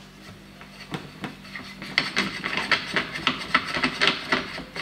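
Airgun suppressor being screwed onto the rifle's half-inch UNF muzzle thread: rubbing and quick scraping clicks as it is turned by hand, getting busier from about two seconds in.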